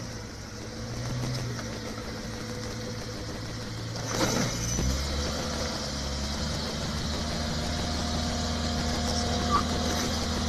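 Subaru Forester's engine running steadily as the car climbs a steep sandy slope on a roller ramp with X-Mode switched off. About five seconds in, the engine note grows stronger and lower as it pulls up the incline. A brief sharp sound comes just after four seconds.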